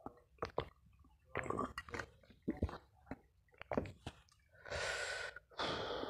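A man gulping and swallowing a drink from a glass jar close to the microphones, a string of short wet swallows, followed by two long breathy exhales near the end.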